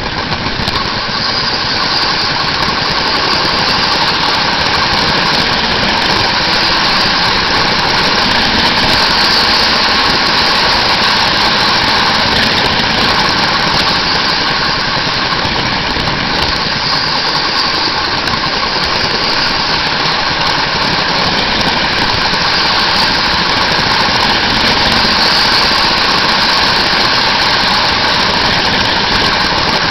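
Marx electric toy train running around the layout, heard from a camera riding aboard: a loud, steady running noise of its electric motor and metal wheels on the metal track.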